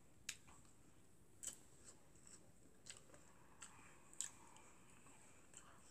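Faint, sparse eating sounds: soft mouth clicks and chewing of someone eating, about half a dozen small clicks spread over a few seconds.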